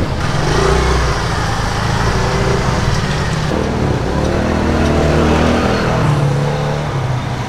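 A motor vehicle engine running, a steady low hum whose pitch rises and falls in the second half.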